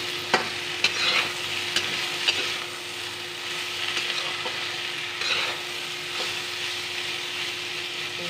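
Sliced potatoes and pointed gourd (parwal) sizzling in oil in a metal kadhai while a metal spatula stirs them. The spatula scrapes and clicks against the pan several times, most often in the first two and a half seconds.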